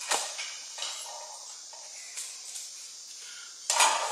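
Battery retaining brackets handled and set in place over the batteries in a balance-scooter chassis: scattered light clinks and knocks, the loudest a short clatter near the end.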